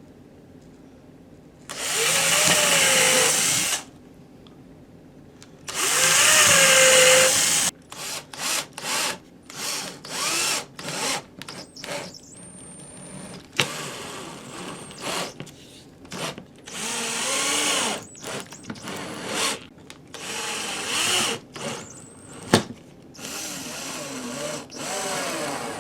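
Power drill boring pilot holes into plywood in two long runs, each rising in pitch as it spins up. It then drives screws in a series of short trigger bursts, with one sharp click near the end.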